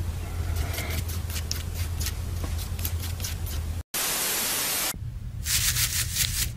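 Television static hiss lasting about a second, just after the middle, cut in as a transition. Before it come a low steady hum and a scatter of light clicks. After it come a few sharp clicks.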